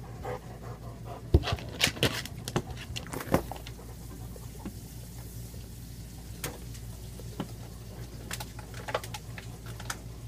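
Labrador retriever panting, with several sharp clicks and knocks between about one and four seconds in and a few fainter ones later.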